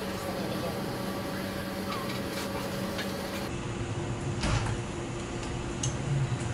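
MIT Cheetah 3 quadruped robot walking: a steady electric hum from its motors, with scattered knocks and clicks as its feet meet the floor.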